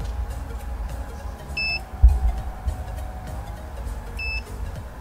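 Short high electronic beep repeating about every two and a half seconds, twice here, from the bait boat's remote handset while the boat is steered out to the spot. Low wind rumble on the microphone throughout, with a handling thump about two seconds in.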